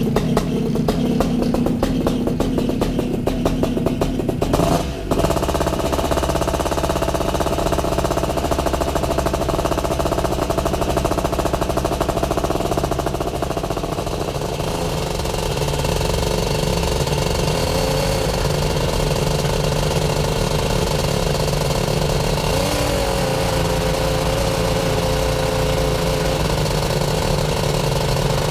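Air Conception Tornado 280 paramotor's two-stroke engine and propeller running steadily at part throttle while a new engine is warmed up for break-in, with a brief dip in loudness about five seconds in.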